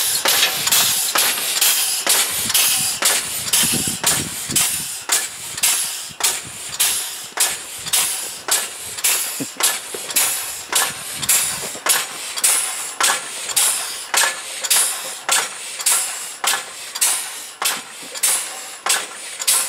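Home-made twin-cylinder compressed-air locomotive, its cylinders made from tractor hydraulic rams and fed through spool valves, exhausting air as it runs: a rhythmic happy hissing, about two puffs a second.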